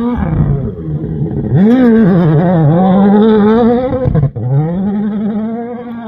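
Rally car engine at high revs, its pitch swinging up and down quickly with throttle and gear changes. About four seconds in, the sound briefly drops out, then climbs and holds a steady pitch.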